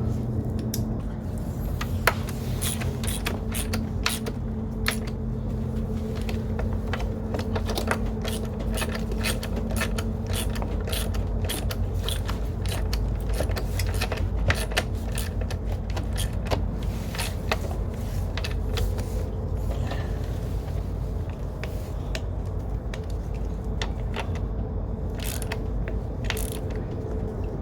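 Hand tools at work on the engine bay: repeated ratchet-like clicking and the clatter of metal parts, irregular throughout, over a steady low background hum.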